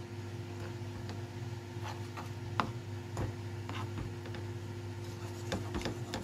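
Metal spoon stirring milk powder into warm milk in a non-stick pan, with scattered light clicks and scrapes of the spoon against the pan, over a steady low hum.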